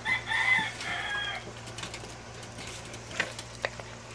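Small dog whining, a high-pitched several-toned whine for about a second and a half, as it begs for food. Two sharp clicks follow near the end.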